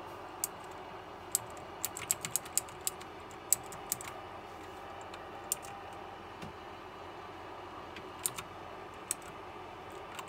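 Keys of a KLIM Domination mechanical keyboard with clicky blue switches being pressed one at a time, each press a sharp click at irregular intervals. A quick run of clicks comes from about one to four seconds in, then a few scattered presses.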